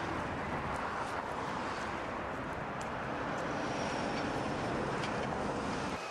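Steady hiss and rumble of road traffic, with a few faint ticks over it.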